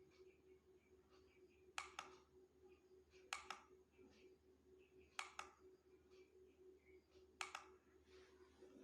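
Buttons on a Bluetooth speaker pressed four times, each press a sharp double click about every two seconds, over a faint steady hum.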